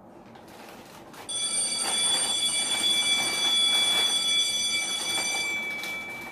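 A bell ringing steadily with several high tones and a rattle under them. It starts about a second in and cuts off suddenly about four seconds later, leaving one tone fading away.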